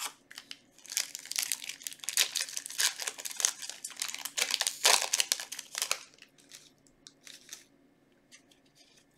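Foil wrapper of a Yu-Gi-Oh booster pack crinkling and tearing as it is opened: a dense run of crackles lasting about five seconds, then a few light ticks.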